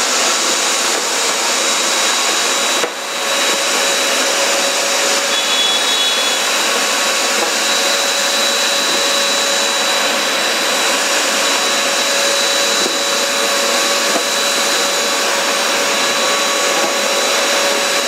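Small 2-in-1 vacuum cleaner/blower running steadily in suction mode, sucking up scraps of paper from a tiled floor through a long rigid nozzle: a steady rushing whine. The sound dips briefly about three seconds in.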